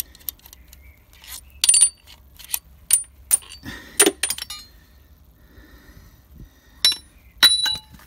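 Sharp metal-on-metal clinks and taps, some with a brief ringing, as a connecting rod and its bearing cap are handled on the crankshaft of a stripped 2.0 CDTI diesel engine. They come as a run of clinks in the first half, then two more near the end, while the big ends are opened to inspect bearings destroyed by oil starvation.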